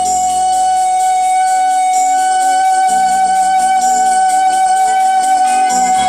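A woman singing one long, steady held note into a microphone, over backing music whose chords change about three seconds in and again near the end.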